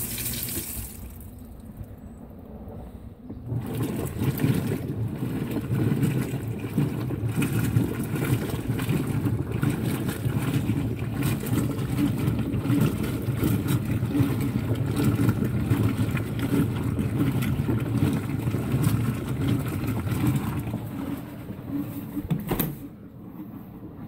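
Brastemp Vantage top-load HE washer in its wash cycle. Water sprays into the basket at first; then, from a few seconds in, the wash action churns a load of jeans in water with a steady low chugging that carries on until a click near the end.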